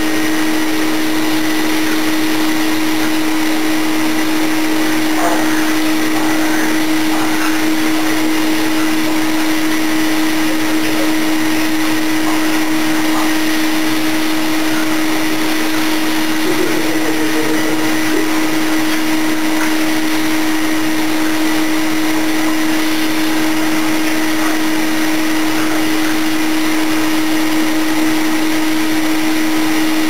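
Upright vacuum cleaner running steadily through its hose attachment: a constant motor whine over the rush of air.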